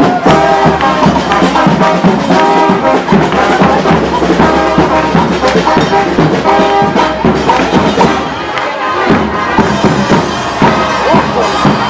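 Brass band playing a dance tune, trumpets and trombones holding notes over a steady drum beat.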